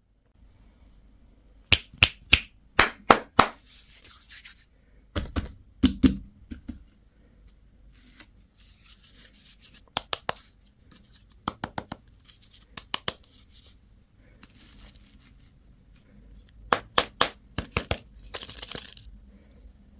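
Plastic candy and toy packaging being handled and opened: sharp clicks and taps in quick clusters, with short bursts of crinkling wrapper, the longest near the end.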